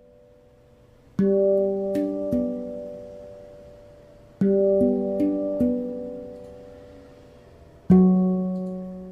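Outro music on a plucked guitar: three short phrases of a few notes, each struck suddenly and left to ring out and fade.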